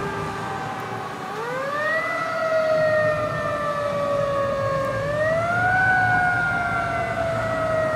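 Fire truck siren wailing as the truck drives off: its pitch climbs quickly twice, each time sliding slowly back down, over a steady background of traffic noise.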